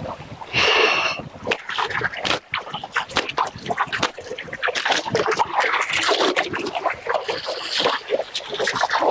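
Clothes being washed by hand in a shallow stream: repeated splashes and slaps of wet cloth in the water, with the running water beneath.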